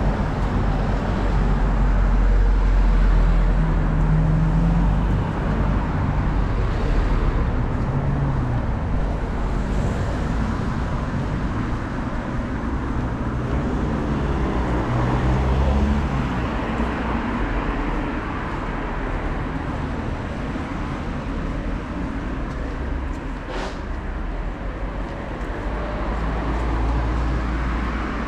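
Road traffic: cars passing one after another, engine and tyre noise with a low rumble, swelling a few seconds in and again about halfway through.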